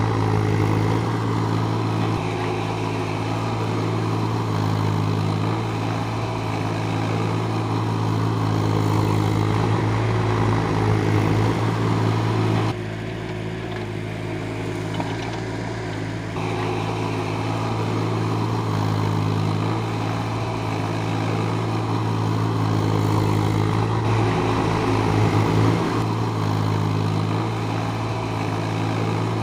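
JCB 30 Plus mini excavator's diesel engine running steadily. It drops in level for a few seconds around the middle, then comes back up.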